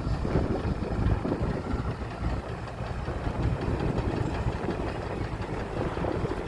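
Heavy construction vehicle's diesel engine running with a steady low rumble.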